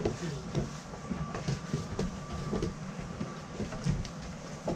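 Irregular knocks and clacks of hiking boots and trekking poles on a wooden plank floor.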